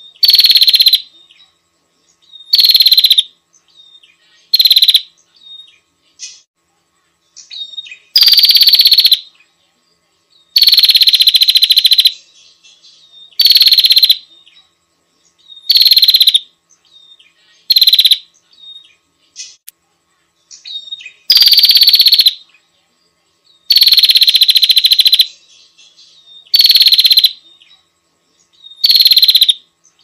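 Prenjak lumut lure call: loud, rapid trilled bursts repeated about every two to three seconds, some short and some drawn out to well over a second, each starting a little higher and settling onto a steady high pitch, with faint softer chirps in the gaps.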